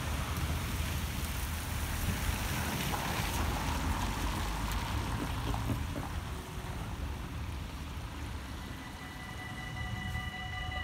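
Road traffic passing over the crossing, a steady hiss and rumble of tyres and engines. About nine seconds in, the railway crossing's warning bells start ringing steadily: the crossing is activating for an approaching train.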